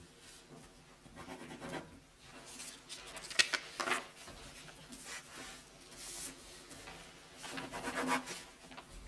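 Pens scratching on paper and sheets of paper being handled and turned, as papers are signed. The sound comes as irregular rustles, loudest about three and a half seconds in and again around eight seconds in.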